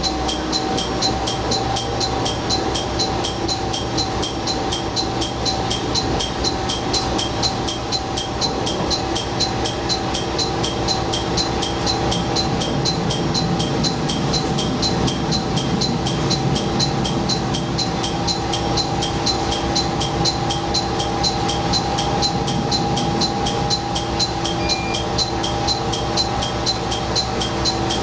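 Diesel railcar heard from the cab, running slowly and drawing up at a station platform, with a steady whine and a fast, even ticking over the engine rumble.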